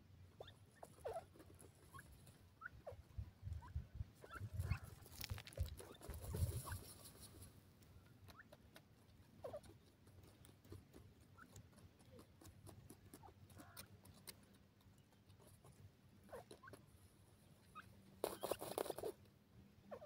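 Faint scattered short chirps from francolins resting in a dust hollow, with soft scratching and crackling of dry soil. There is a brief rustling burst near the end.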